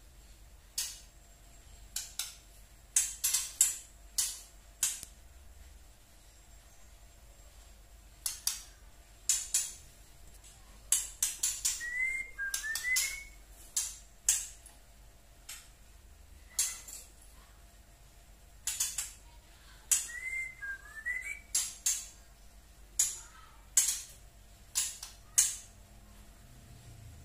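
Young white-rumped shama (murai batu) giving its rattling 'tretek' call: sharp clicks in irregular clusters. Twice, around the middle and again about three-quarters through, it adds a pair of short rising whistled notes.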